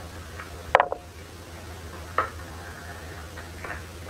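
Close-up eating sounds: a few short, sharp crunches and mouth clicks as food is chewed, the loudest about a second in and another a little past two seconds. A steady low hum lies under them.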